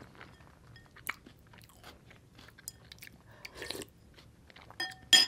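Close-miked mouth sounds of eating matzo ball soup: small lip and mouth clicks, a short slurp from the spoon about three and a half seconds in, then a metal spoon clinking twice against the glass bowl near the end, the second clink the loudest.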